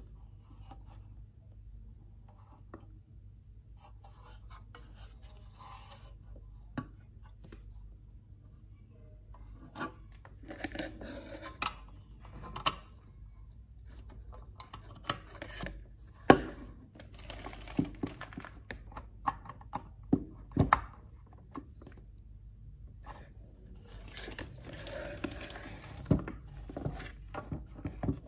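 Handling noise as cables and plugs are worked into an HDMI audio converter box on a desk: bursts of rubbing and rustling with scattered sharp clicks and knocks, the loudest about halfway through. These come as a Fire TV Stick's HDMI plug is pushed into the HDMI input and a DC power plug is connected.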